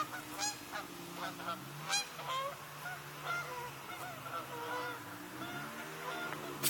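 Many short, irregular honking calls over a low, steady engine hum.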